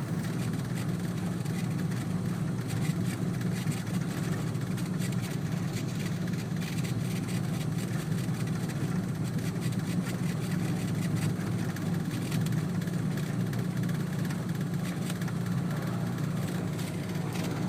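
Twin piston engines of a Cessna 402 running steadily at low power while taxiing, a steady low drone.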